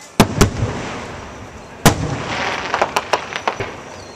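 Aerial fireworks shells bursting: two sharp bangs near the start, a louder bang about two seconds in, then a quick rattle of many small pops.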